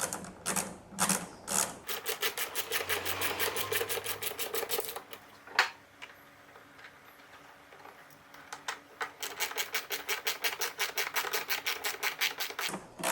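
Rapid, even clicking from a 4 mm hex driver as the lid's hinge screws are tightened back in. A few slower clicks come first, then two long runs of fast clicks separated by a short pause, with one sharp louder click in between.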